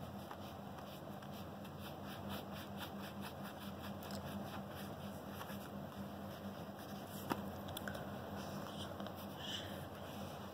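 Pencil scratching on paper in short, irregular strokes as a drawing is outlined, over a steady low hum, with one sharp tick about seven seconds in.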